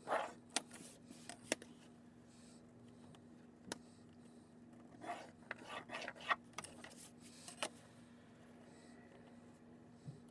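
Graphite pencil drawing lines along a clear plastic ruler on paper: scratchy strokes just after the start and again in a cluster around the middle. A few sharp clicks come from the ruler and pencil being set down and shifted.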